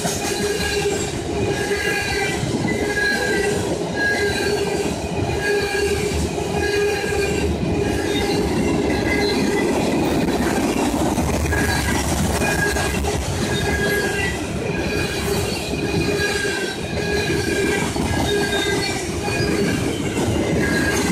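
Freight cars of a manifest train rolling past: a steady rumble of steel wheels on rail, with short high-pitched wheel squeals repeating about once a second.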